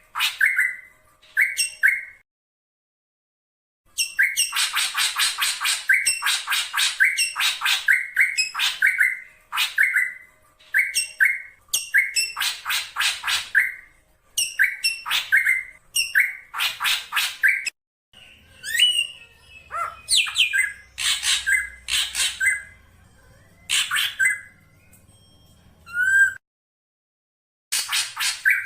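Black drongo calling: runs of sharp, scratchy notes mixed with short ringing whistles, repeated in quick bursts and broken twice by brief dead-silent gaps.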